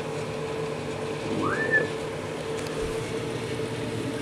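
Microwave oven running with a steady hum. About a second and a half in, one short whistle rises in pitch and briefly holds.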